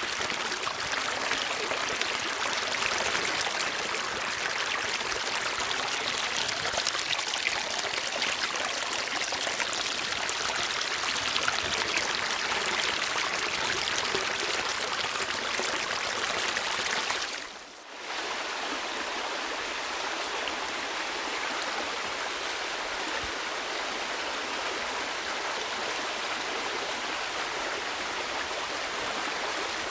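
Steady rush of flowing water, like a stream. The sound briefly fades and comes back about 18 seconds in, slightly softer and thinner afterwards.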